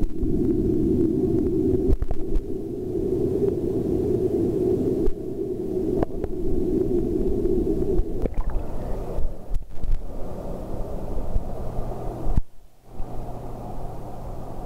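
Muffled, steady low rumble of pool water picked up by a camera's microphone inside its waterproof housing underwater, with scattered knocks from the housing being handled. The rumble thins out about eight seconds in and drops away briefly around twelve seconds.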